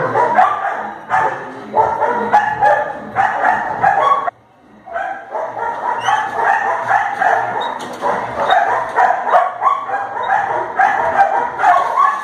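Dog barking and yipping in quick, repeated bursts, with a brief pause about four seconds in.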